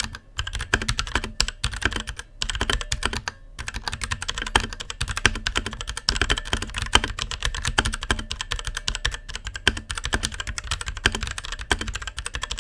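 Fast typing on a mechanical keyboard fitted with Outemu switches: a dense, continuous run of keystroke clicks, with brief pauses about two and three and a half seconds in.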